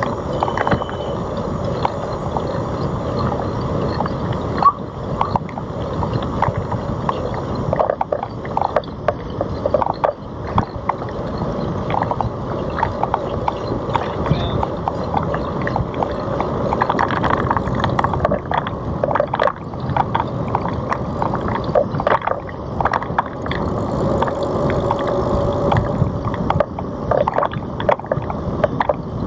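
Riding noise from a Citi Bike picked up by a bike-mounted GoPro: a steady, muffled rush of air over the microphone, with frequent small knocks and rattles as the bike rolls over the path.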